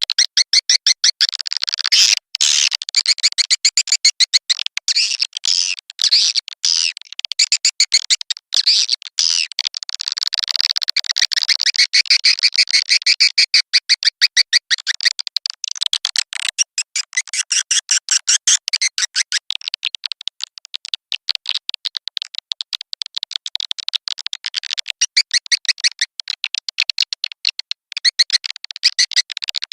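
Swiftlet lure call: a recorded swiftlet calling track of dense, rapid, high-pitched twittering chirps, many a second, that goes on without a break and has no low end. It is the kind of track played to draw swiftlets into a nesting house.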